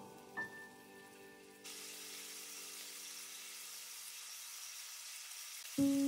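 Chopped smoked bacon sizzling in hot olive oil in a stainless steel pan, a steady hiss that starts abruptly about a second and a half in. Soft piano music fades out at the start and comes back near the end.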